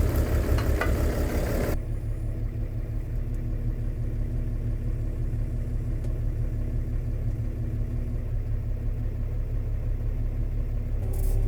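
Diesel engine of a New Holland TS135A tractor running steadily with a low rumble. About two seconds in, a brighter, noisier layer over it cuts off suddenly.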